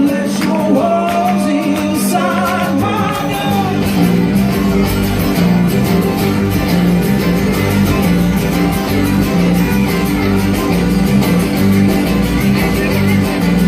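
Folk-rock band playing live: guitars, bass and drums with a steady beat, and a sung line in the first few seconds.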